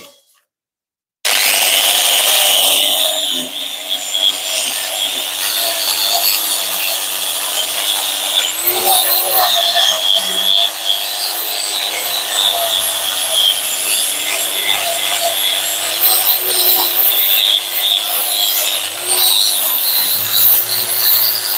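A power tool's motor running steadily off-picture, a held hum with a high hiss over it, cutting in abruptly about a second in.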